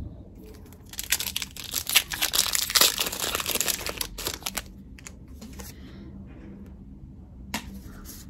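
Foil wrapper of a Pokémon booster pack being torn open and crinkled by hand, a dense crackling rustle from about a second in that dies down after about four and a half seconds, leaving faint rustling and a single click near the end.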